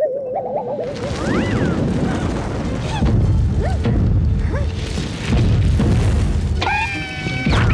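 Cartoon sound effects: a short wobbly boing, then a long rumbling crash with thuds over music, and a held high tone near the end.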